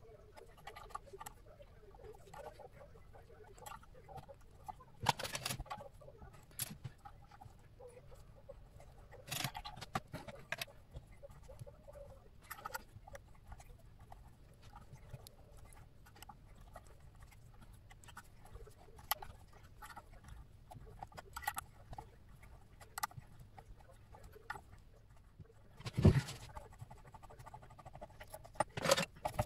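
Scattered small clicks, scratches and taps from hand work at a mini-lathe, with a few louder knocks, the loudest about 26 seconds in.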